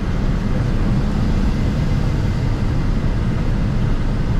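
Steady cockpit noise on the flight deck of a Gulfstream G650 on approach: an even, low rumble of airflow and engine noise with nothing standing out.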